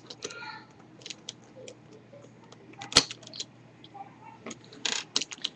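Plastic pieces of a V-Cube 5 puzzle cube clicking and knocking as they are pried out one by one: scattered small ticks, one sharp click about three seconds in, and a quick run of clicks near the end.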